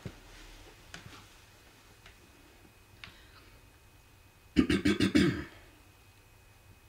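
Laptop keyboard being typed on: a quick run of about seven sharp key clicks about four and a half seconds in, with a few faint single taps before it.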